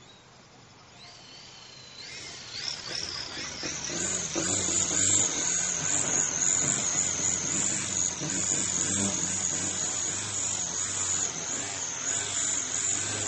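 Electric RC aircraft motors and propellers whining. The pitch rises over the first few seconds, then settles into a loud, high, steady whine that wavers slightly up and down.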